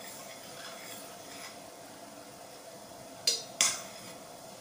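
A metal spoon stirring sugar syrup in a stainless-steel pot, clinking sharply against the pot twice near the end, over a steady faint hiss.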